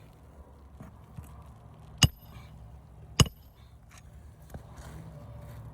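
Hammer striking metal twice, a little over a second apart, on a shingle roof repair; each blow is sharp and leaves a brief metallic ring.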